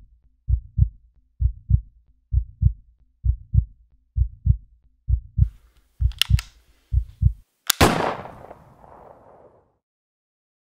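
Heartbeat sound effect, paired low thuds a little under once a second. About six seconds in, two sharp clicks come from the pistol being handled, and a second later comes a single loud pistol shot with a reverberating tail. The heartbeat stops just before the shot.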